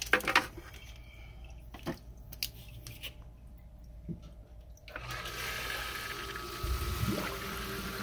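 Knocks and water sounds at a sump pit, then about five seconds in the submersible sump pump switches on: a steady motor hum with water churning and air bubbling up around the pump. The owner links these bubbles, and water running back down the discharge pipe when the pump stops, to a check valve going bad.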